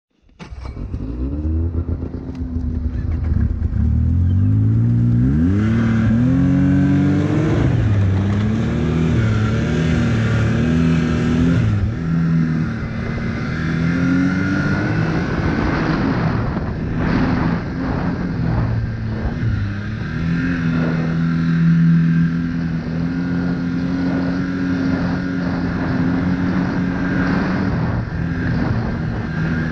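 Arctic Cat XF snowmobile engine pulling away, its pitch rising in several surges of acceleration over the first dozen seconds, then running at a steady cruising speed. A few knocks and rattles come through about halfway in.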